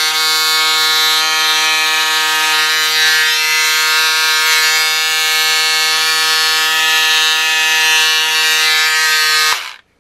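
Pink Power electric cordless scissors running with a steady buzz as they cut through four layers of satin. The motor stops abruptly near the end.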